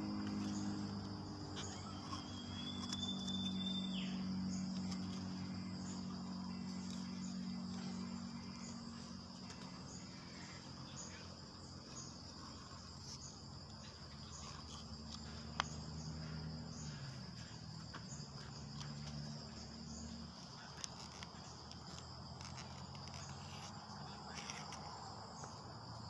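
Insects chirping in a steady, evenly repeating high pulse, over a low steady hum. A short high whistle rises and holds about two seconds in, and a few faint clicks sound from handling.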